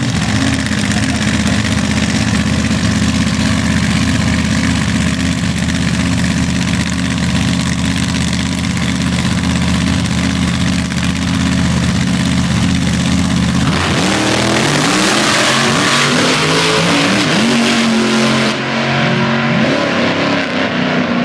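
Drag-racing funny car and altered engines idling with a steady, deep note at the start line. About fourteen seconds in they launch with a sudden surge of noise, and the engine pitch climbs and drops in steps as the cars run away down the strip.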